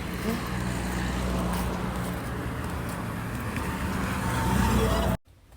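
Car on the move: a steady low engine hum with road noise, cutting off suddenly near the end.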